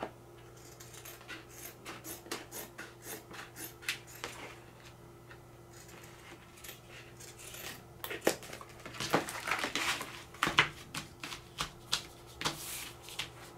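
Scissors cutting a thin plastic placemat: a run of short, crisp snips, a few a second, that thin out midway and come thick and fast again near the end, mixed with the sheet flexing as it is turned.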